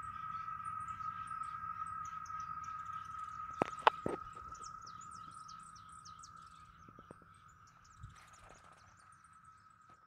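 Quick high bird chirps repeating over a steady, even insect drone, with a couple of sharp clicks about four seconds in. The whole fades over the second half.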